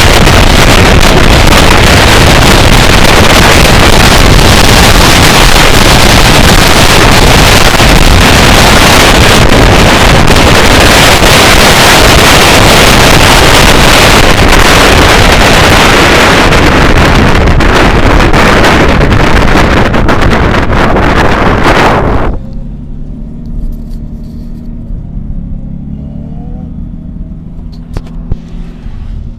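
Loud wind rushing and buffeting over the microphone inside a moving Nissan Z, so loud that it nearly saturates the recording. About 22 seconds in it cuts off abruptly, leaving the car's low engine and road hum with some rising and falling pitch.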